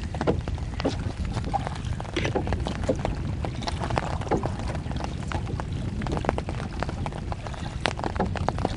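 Water lapping and slapping against the hull of a small wooden boat in irregular little splashes, over a steady low wind rumble on the microphone.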